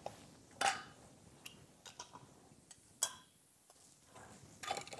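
Metal canning lids being set one by one onto the rims of glass half-pint jars: a handful of light, separate clicks and taps, metal on glass.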